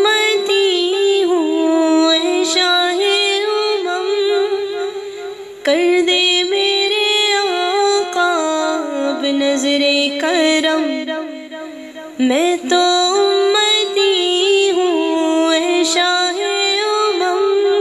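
A woman singing a naat with no instruments heard: long, ornamented phrases that bend in pitch, sung in three breaths with short gaps about six and twelve seconds in.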